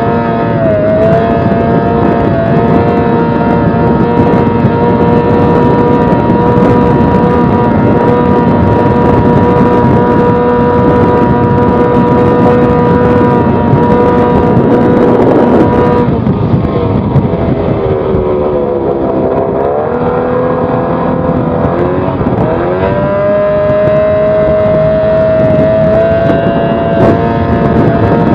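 Yamaha 20 hp outboard motor running flat out on a racing boat at about 40 knots, a steady high engine note over rushing wind and water. About two-thirds of the way through, the revs sag and waver for several seconds, as the boat comes round a turn, then climb back to a steady high pitch.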